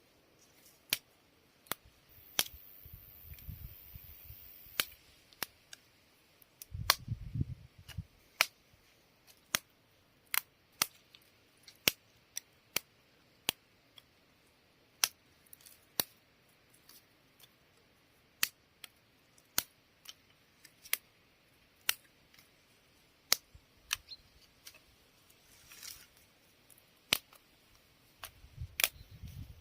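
Wood campfire crackling: sharp pops at irregular spacing, about one a second, with a few brief low thuds.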